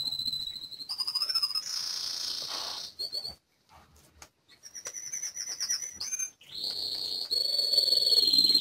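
High, thin whistling tones that waver and jump in pitch, with a hiss about two seconds in, a brief drop to near silence in the middle, then a warbling trill and a held high whistle near the end.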